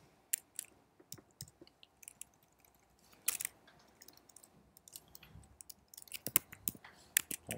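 Computer keyboard keystrokes: a few scattered key clicks, a louder one about three seconds in, then a quicker run of typing near the end.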